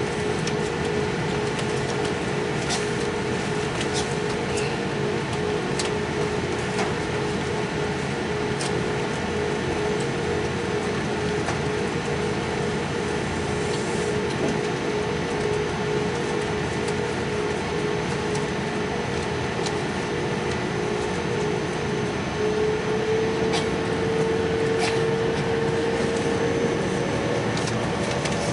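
Jet airliner cabin noise: a steady engine hum with a whine that steps up in pitch and grows a little louder about 22 seconds in, as the engines begin to spool up for takeoff on the runway. A few faint clicks over it.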